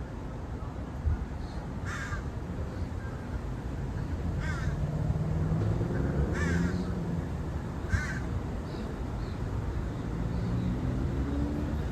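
A crow cawing four times, a short harsh caw every two seconds or so, over a low steady rumble.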